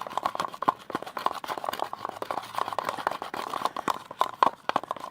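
Homemade slime being stirred and mixed in a plastic pot: a steady run of rapid, irregular sticky clicks and smacks as it nears the right consistency but still clings to the pot.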